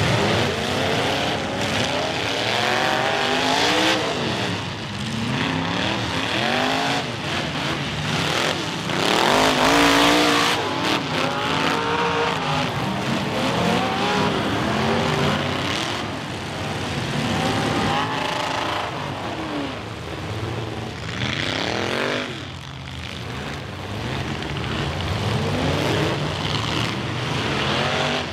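Engines of several full-size demolition derby cars revving at once, their pitches rising and falling as they drive at and ram each other, with a loud impact about ten seconds in.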